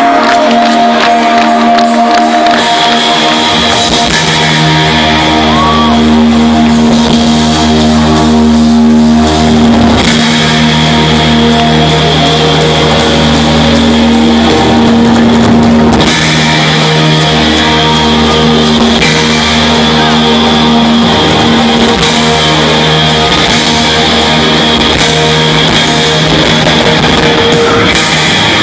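Live rock band playing loud amplified music: electric guitars and drums with sustained chords and bass notes, heard from within the audience.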